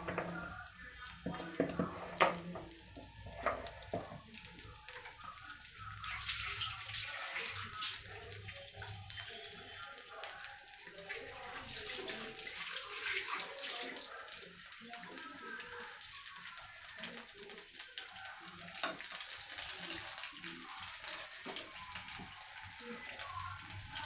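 Battered mushroom pakodas deep-frying in hot oil in a kadai: a steady sizzle with fine crackling. There are a few sharp clicks in the first few seconds, and the sizzle grows a little louder about six seconds in.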